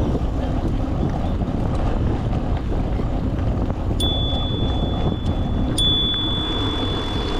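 Bicycle bell rung twice, about two seconds apart, each strike a single clear ring that fades slowly, over steady wind and riding noise.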